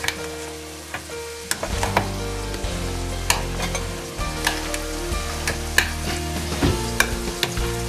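A metal fork stirring and mashing boiled beans and potatoes in a stainless steel pot. The tines strike the pot's sides and bottom in sharp metallic clicks, one or two a second.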